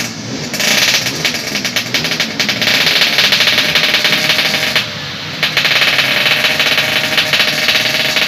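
Race-tuned 140cc Yamaha RX-King two-stroke single-cylinder engine revving hard and held at high revs with a rapid crackling beat. The throttle drops off briefly right at the start and again about five seconds in, then picks back up.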